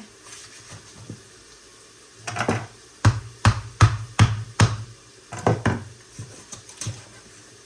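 Repeated mallet blows while splitting a whole raw chicken: about nine sharp knocks, most a little under half a second apart, from about two seconds in to about six.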